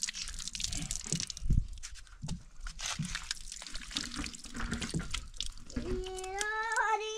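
Water running from a tap on a plastic water tank and splashing over hands being washed, with small drips and splashes. About six seconds in, a long, drawn-out high call begins over it.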